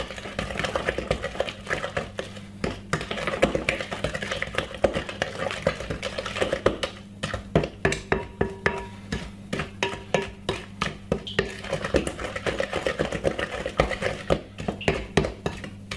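Wooden spoon beating sponge-cake batter of creamed butter, sugar, flour and egg in a glass mixing bowl. It scrapes round the bowl at first, then knocks against the glass repeatedly, about two or three times a second, through the second half.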